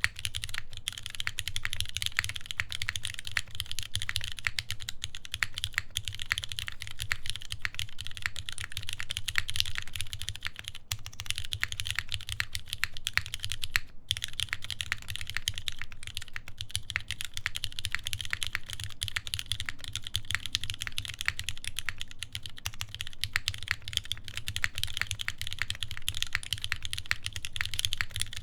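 Continuous typing on a Keycult No. 1 Rev. 2 tenkeyless mechanical keyboard with an aluminium plate, GMK keycaps and lubed vintage Cherry MX Black linear switches on 63 g springs: a dense run of keystroke clacks, with brief pauses about 11 and 14 seconds in.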